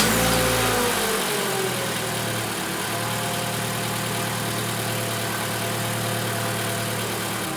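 2017 Toyota RAV4's engine just started on a freshly installed battery: the revs drop over the first couple of seconds from the start-up flare, then settle into a steady idle.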